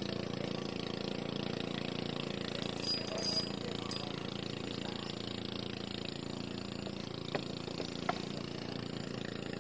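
An engine running steadily at an even pitch, its hum unchanged throughout, with two short sharp clicks near the end.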